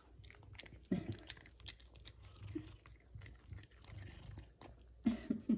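F2 Savannah cat chewing shredded chicken off a paper plate: a run of small wet clicks and smacks, with a louder sound about a second in and two more near the end.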